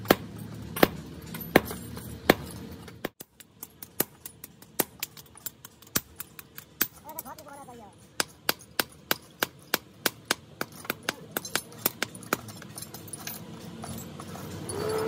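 Hammer blows on red-hot leaf spring steel on a small block anvil, each a sharp clink: first a few spaced heavy blows, then after a short break a quicker run of hand-hammer strikes, about three a second.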